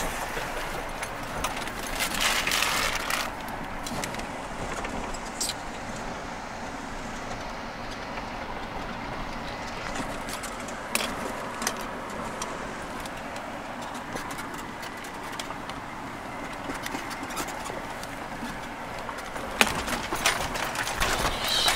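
A Jeep driving slowly over a gravel trail, heard from inside the cab: steady engine and tyre noise with loose rattles and scattered sharp knocks from the rough ground. The rattling gets louder briefly about two seconds in and again near the end.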